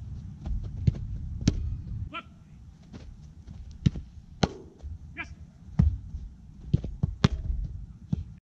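Wind buffeting the microphone, with several sharp thuds of a soccer ball being struck and hitting the keeper and the goal, and a few brief high calls. The sound cuts off suddenly near the end.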